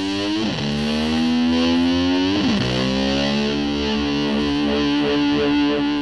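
Background music: a distorted electric guitar playing long sustained notes. It slides into a new note twice and wavers on the last held note.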